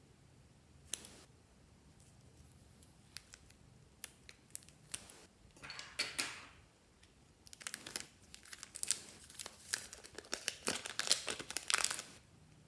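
Slime being handled and mixed by hand: scattered sharp clicks and short crackles that build into a dense, busy run of crackling and popping in the second half.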